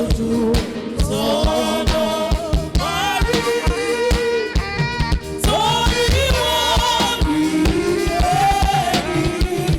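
Gospel praise song sung with a band, with drums keeping a steady beat.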